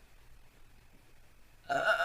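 Quiet room tone, then near the end a woman lets out a loud, steady-pitched burp that carries on past the end.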